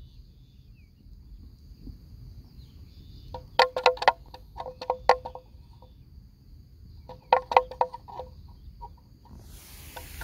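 A wooden or metal neck bell on a grazing water buffalo clonking in two quick, irregular clusters of pitched knocks as the animal moves. A faint steady high insect whine runs underneath, and a hiss sets in near the end.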